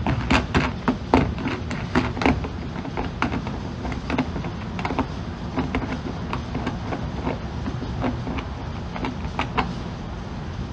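Scattered clicks and knocks of a metal crossbar dent puller being handled and taken off a glued pulling tab on a car hood, over a steady low hum.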